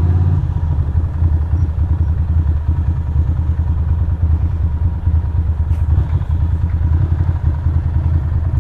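Ducati Monster's V-twin engine running steadily while riding, a dense low rumble that wavers in loudness throughout.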